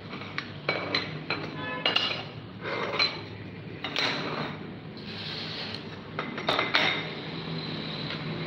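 Aluminium extrusion rods for a 3D printer frame knocking and clinking against each other as they are moved and arranged on a table: a string of sharp metallic knocks, some with a short ring.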